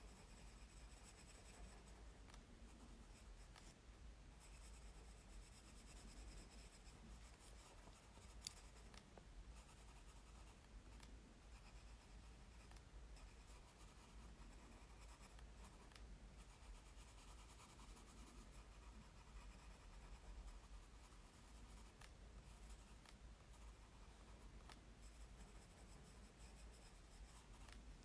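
Faint scratching of a fine-tip pen drawing on diary paper, with one small sharp tick about eight seconds in.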